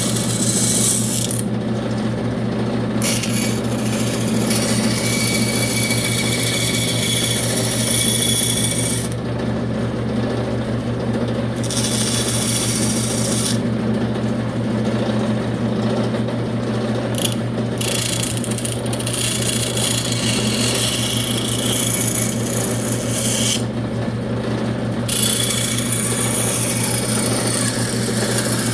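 Electric hand power tool working wood, its motor humming steadily throughout, with a hissy abrasive grind that stops briefly about four times as the tool is lifted off the wood.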